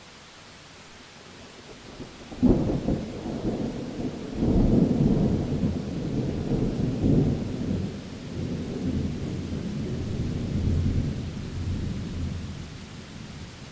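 A thunderclap breaks in sharply about two seconds in over steady rain, then rolls on as a long low rumble that swells several times and dies away near the end.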